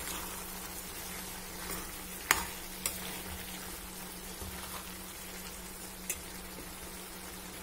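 A steel ladle stirs cooked, diced pumpkin in a stainless steel pan over a soft, steady sizzle. The ladle clinks sharply against the pan a little over two seconds in, with lighter taps shortly after and again near the end.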